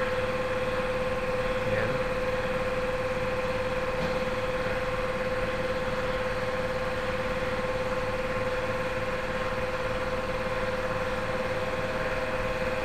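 Steady machine hum carrying one constant, unwavering tone, with a second tone joining near the end.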